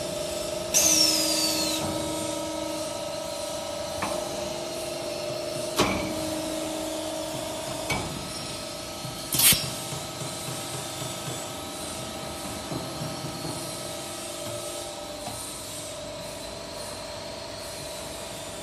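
Plastic pipe belling machine running with a steady hum. Near the start there is a loud hiss with a whistle falling in pitch, then several single knocks, and a short sharp hiss about nine and a half seconds in.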